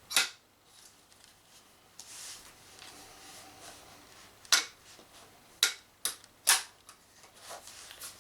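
Sharp clicks and knocks from handling a Brugger & Thomet GL-06 airsoft grenade launcher while a tight-fitting slug is loaded: one click just after the start, then four more in the second half, with a soft rustle about two seconds in.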